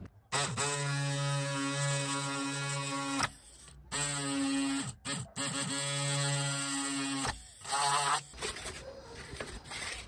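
Handheld mini electric drill running in short spells while drilling small holes through a wooden spar set in a foam wing: a steady buzzing hum that starts and stops about four times.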